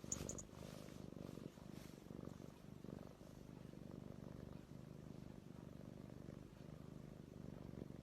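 Kitten purring steadily, a low, finely pulsing purr that dips briefly every second or two. A few quick high ticks right at the start.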